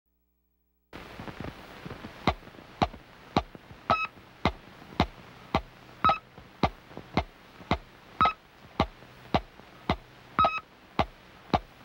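Electronic ticking from a cartoon soundtrack: sharp clicks about twice a second, starting about a second in, with a short high beep on roughly every fourth tick.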